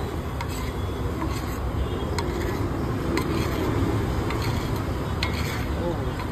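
Metal spatula stirring and scraping egg curry in a pan, with scattered light clicks of metal on metal over a steady low rumble.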